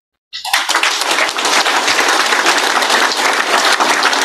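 Audience applauding, starting suddenly about half a second in and keeping up steadily.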